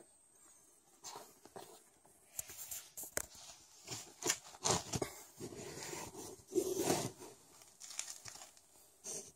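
Fabric rustling and scraping against a cardboard box in irregular bursts as the blanket over the box is lifted and handled.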